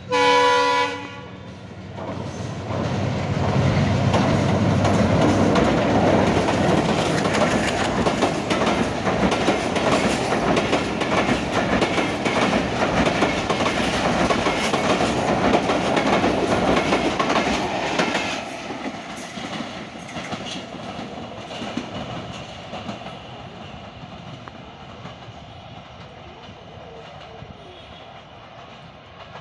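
A diesel locomotive's horn sounds one blast of about a second, then the passenger train crosses a steel girder bridge close by, its wheels clattering in a quick, even rhythm. About eighteen seconds in, the sound drops sharply and the train runs on more faintly.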